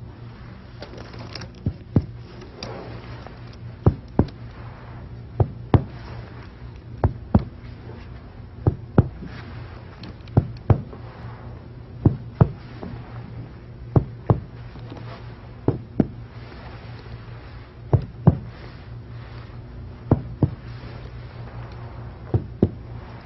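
Finger-on-finger chest percussion over a healthy lung: a double tap about every two seconds, each pair giving a resonant note.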